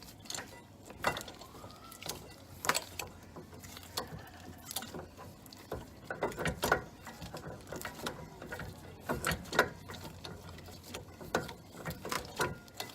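Scattered metallic clicks and clanks, irregularly spaced, of a C-clamp and hand tools being handled against a brake caliper while setting up to push the caliper piston back.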